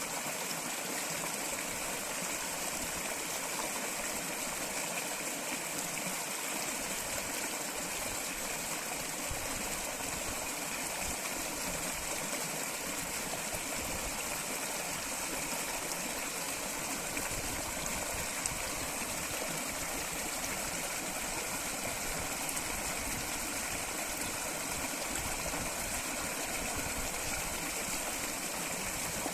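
Running water flowing steadily, an even rush of a stream that keeps going without change.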